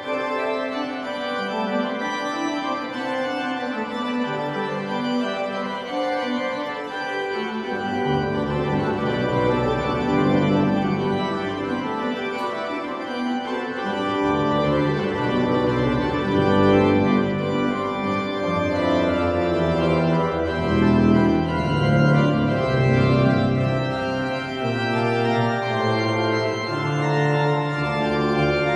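Organ music: slow held chords, with a deeper bass line coming in about eight seconds in.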